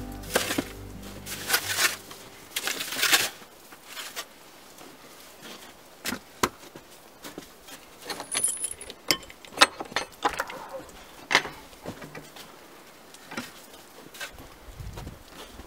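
Snow being scraped and cleared by hand and tool from the foot of an old wooden barn door: a run of rough scrapes and crunches in the first few seconds, then scattered knocks and crunching steps in snow.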